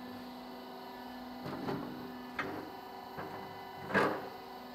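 Metal clanks and knocks from handling the steel bar and plates of a camellia-seed oil press, the loudest knock about four seconds in, over a steady hum that stops about halfway.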